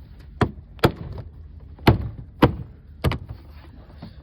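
Door trim panel of a 2006–2011 Honda Civic being knocked back onto the door to seat its clips: five sharp knocks at uneven intervals.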